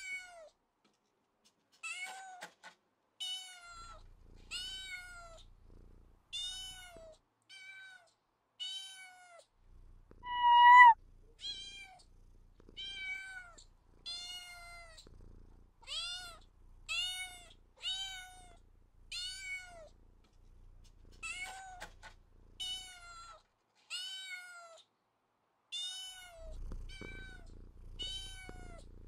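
Cat meowing over and over, short mews with a falling pitch at about one a second. One louder, higher-pitched meow comes about ten seconds in.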